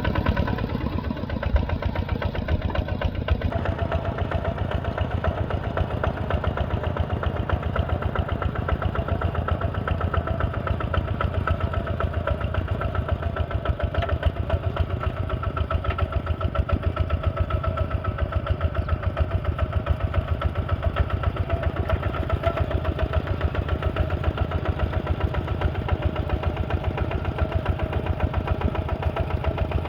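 Heavy-equipment engine running steadily, with an even chugging pulse.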